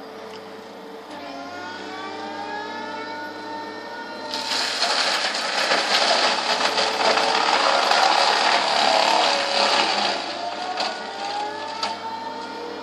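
Excavator-mounted mulcher head shredding a shrub: a loud grinding, shredding noise from about four seconds in until about ten seconds. Around it the machine's engine and hydraulics run, with rising whines before and after the cutting.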